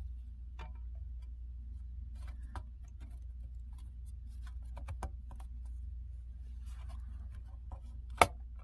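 Faint scattered ticks and taps of a MacBook Pro's aluminium bottom case being handled and worked onto the chassis, over a steady low hum. Near the end comes one sharp, loud click as the case's retaining clips snap into place under a pressing hand.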